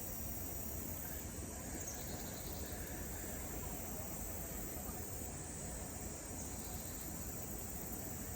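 Steady high-pitched chorus of insects, a constant buzzing trill over a low background hiss.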